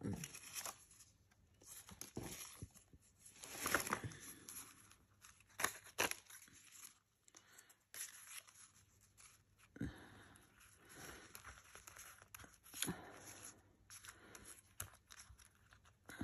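Paper rustling and crinkling in irregular bursts as paper scraps and a paper cut-out are handled and shuffled on a cutting mat, with a few light taps; the loudest rustles come about four and six seconds in.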